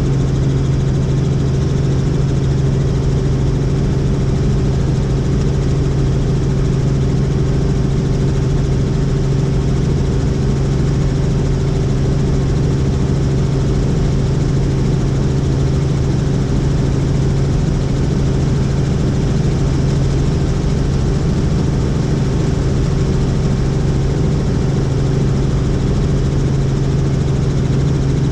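Helicopter engine and rotor noise: a loud, steady drone with a strong low hum that does not change.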